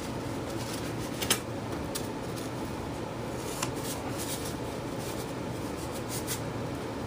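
Steady room hum with a few short clicks and rustles from hands handling foam board and packing tape during the build.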